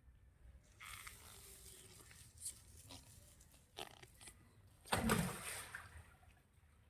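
A farm animal snuffling and breathing noisily, with a loud snort about five seconds in.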